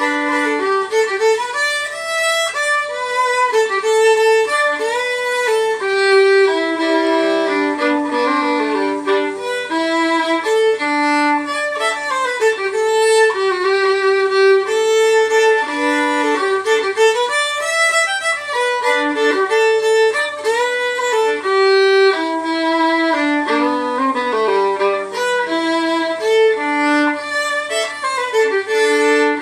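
A fiddle played solo: a fiddle tune bowed in quick runs of notes, changing pitch several times a second without a pause.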